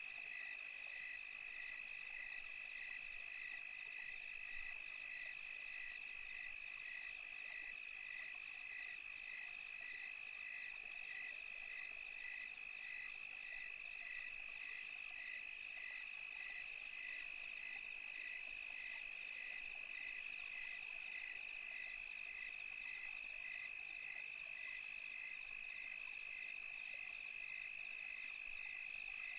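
Night-time nature ambience of calling insects: a steady high trill, with a second chirp pulsing evenly somewhat more than once a second.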